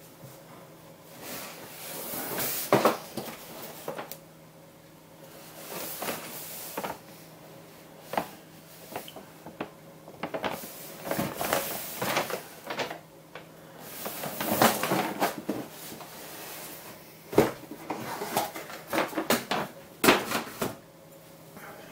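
A cardboard model train-set box being handled and its lid lifted off: rustling and scraping of cardboard, with several sharp knocks and clicks.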